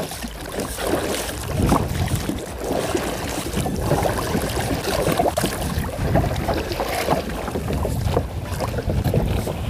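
Water lapping and splashing against a kayak's hull, with small irregular knocks, and wind buffeting the action camera's microphone.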